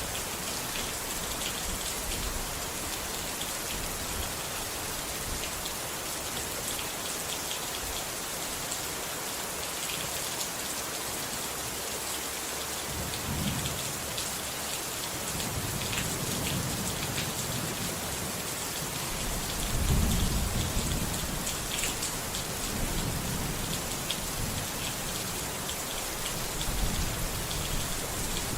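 Steady rain falling, with low rolls of thunder rumbling in about halfway through; the loudest roll comes about two-thirds of the way in.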